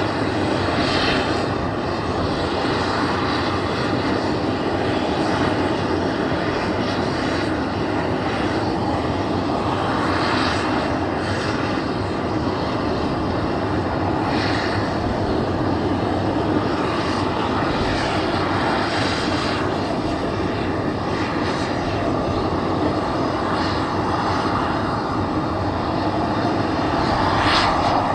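Pratt & Whitney PT6A-50 turboprop engines of a de Havilland Dash 7 running at ground idle during the engine start-up sequence: a steady turbine whine and propeller noise. There are a few brief swells in the higher whine, and the biggest comes near the end.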